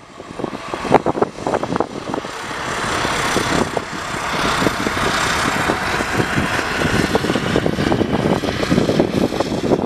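Let L-410 Turbolet twin-turboprop's engines and propellers running at high power on the takeoff roll. The noise swells over the first few seconds, then holds steady, with gusts of wind buffeting the microphone throughout.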